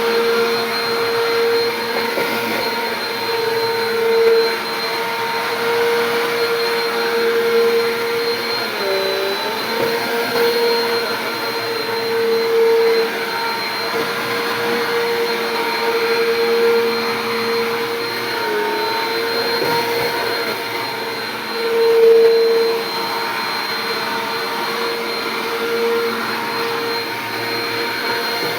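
Bissell PowerForce Compact upright vacuum cleaner running steadily, with a constant motor whine that dips briefly in pitch twice.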